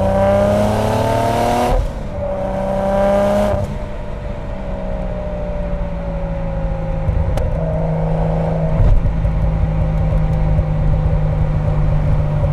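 Single-turbo Mk4 Toyota Supra's straight-six pulling hard through a Blitz Nur-Spec exhaust, rising in pitch, with a quick upshift about two seconds in and a second short pull. The driver lifts off about three and a half seconds in, and the engine then runs on at a lower, steady pitch.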